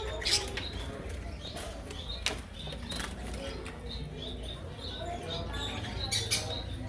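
Caged birds chirping and squawking in short, sharp calls a few times, over a steady low hum.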